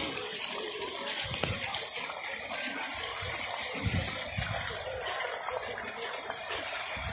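Strong gusty wind: a steady rushing hiss, with low rumbling buffets on the phone's microphone a few times as gusts hit.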